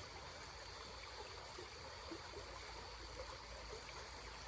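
Small creek water trickling and flowing steadily, faint.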